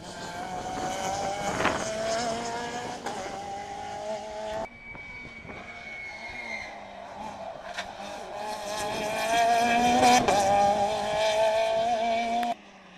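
Rally car engines revving hard as the cars pass close by at speed, one after another. The sound breaks off abruptly about a third of the way in and again just before the end, and the second car is loudest as it goes by about ten seconds in.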